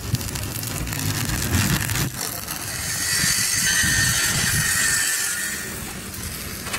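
Stick-welding arc crackling on the steel of a loader bucket, then about three seconds in an angle grinder grinds the steel with a steady high whine that fades near the end.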